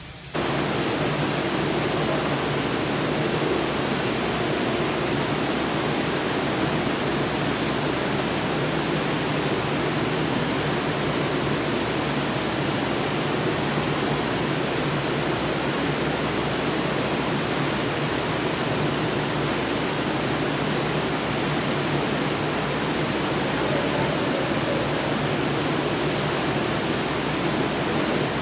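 Steady rushing noise with a faint low hum beneath it, starting abruptly about a third of a second in and holding level throughout.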